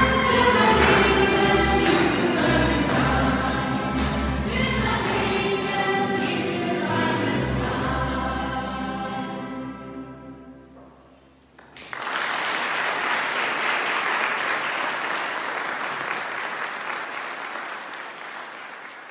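A sung worship song, voices over a steady low bass, fades out in the first half. About halfway through, applause breaks out suddenly and carries on, slowly fading.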